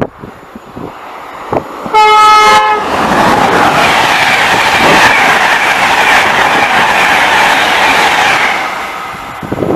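A train horn gives one short blast of several steady tones at once, about two seconds in. Then a train passes close at speed, a loud, steady rush of wheels on the rails that fades near the end.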